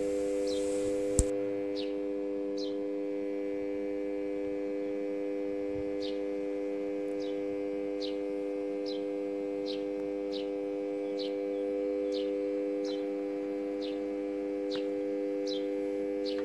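Welding transformer humming steadily under load as it drives current through a flat two-core cable, heating the conductor until the insulation smokes. Over the hum a small bird chirps short falling notes about once a second, and there is a single click about a second in.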